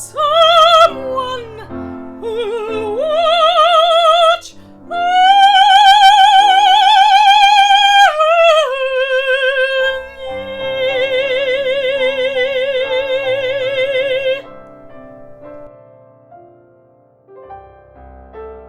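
A woman singing with piano accompaniment, in an operatic style with wide vibrato. She holds long high notes, the last one stepping down and sustained for about six seconds. Then the voice stops and the piano plays on alone, more quietly.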